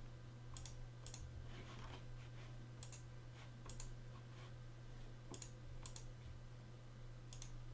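Computer mouse clicking about seven times, spaced irregularly, each click a quick press-and-release, over a low steady hum.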